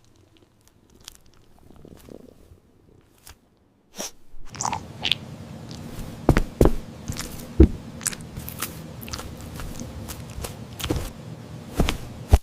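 Crunchy chewing and biting of food. It is quiet with only a few faint clicks at first, then from about four seconds in it becomes loud, with many sharp crunches over a noisy bed.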